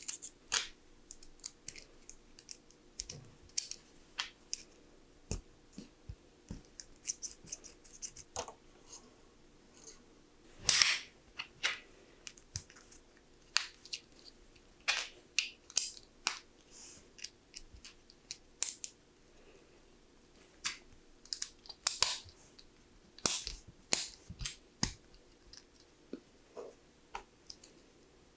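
LEGO plastic pieces being handled and pressed together: irregular sharp clicks and small plastic taps, with a louder snap about eleven seconds in and a cluster of clicks past the twenty-second mark.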